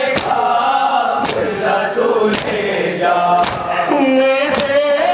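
Men's voices chanting a noha, a Shia Muharram lament, in a drawn-out melody, with sharp hand-on-chest slaps of matam (ritual chest-beating) keeping time about once a second.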